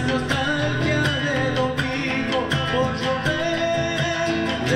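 Live acoustic music: an acoustic guitar strummed along with a hand drum keeping a steady beat, and a man singing.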